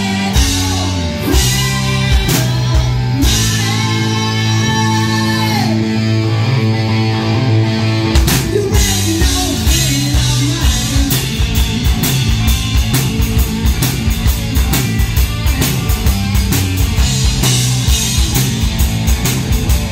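Live rock band playing: drum kit, electric guitars and bass. About eight seconds in, the drums pick up a fast, driving beat.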